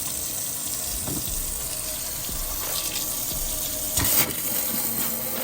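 Newly installed kitchen faucet running water steadily into the sink, with a sharp knock about four seconds in.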